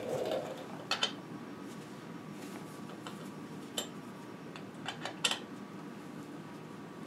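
A few light metallic clinks of an Allen wrench working the crank bolt on a bicycle crank arm, a double clink about a second in and several more over the next seconds, over a steady faint hum.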